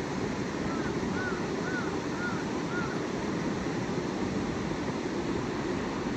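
Steady outdoor rushing noise, with a bird giving five short arched chirps about half a second apart in the first three seconds.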